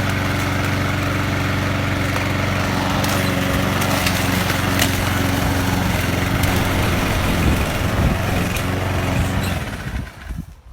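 Petrol lawnmower engine running steadily after a pull-cord start, then slowing and cutting out near the end.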